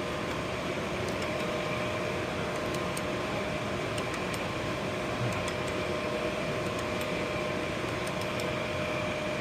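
Power pipe threading machine's electric motor running with a steady hum, with a few faint ticks scattered through it.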